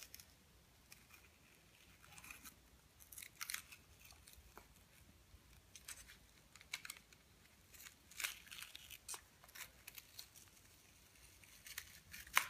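Faint, irregular crackling and rustling of blue masking tape being handled and peeled off a balsa wing.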